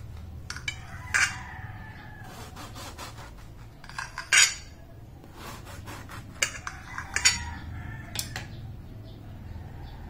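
Knife clinking and scraping against a ceramic plate while cutting through a soft cake: a handful of sharp clinks, the loudest about four seconds in.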